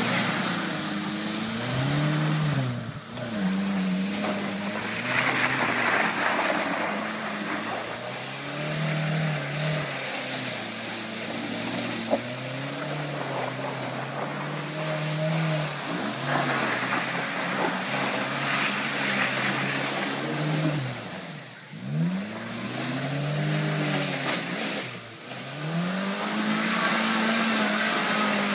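Suzuki Samurai's small four-cylinder engine revving up and down repeatedly as the 4x4 drives and spins its wheels through mud, the revs dropping away briefly a few times.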